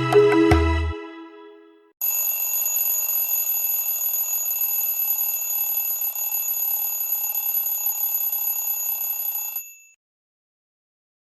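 Huawei G Play Mini phone tone imitating an old telephone's electric bell: a steady bell trill lasting nearly eight seconds that stops abruptly. It follows the fading tail of a melodic tone in the first two seconds.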